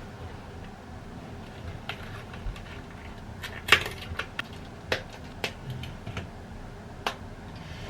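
Irregular light clicks and taps of desk work, such as a pen and stationery being handled, about half a dozen spread unevenly, the loudest about four seconds in, over a steady background hiss.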